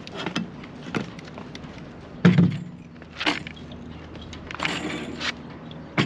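Knocks and clunks of a 9.8 hp outboard motor being manhandled off its mounting bracket on a sailboat's transom. The loudest is one heavy thud about two seconds in, followed by more knocks, a short scraping noise about five seconds in and a sharp click at the end.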